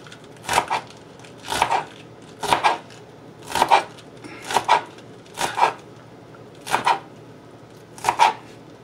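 Chef's knife chopping pak choi stalks on a plastic cutting board: about eight separate cuts, roughly one a second, each a short knock of the blade through the stalk onto the board.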